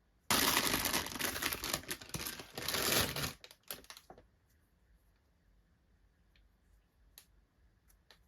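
Doll packaging being torn and crinkled open: a sudden loud stretch of tearing and crackling lasting about three seconds, trailing off into a few crackles and then occasional faint clicks.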